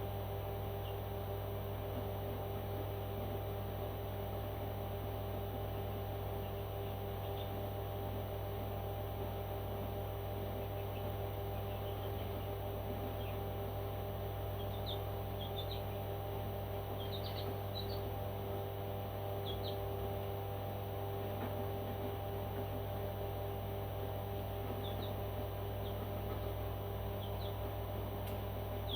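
A bird giving short, high chirps every few seconds, scattered and irregular, over a steady low electrical hum.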